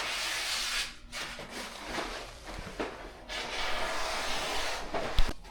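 Rough rustling and scraping noise in long stretches, broken by short pauses, with one sharp knock near the end.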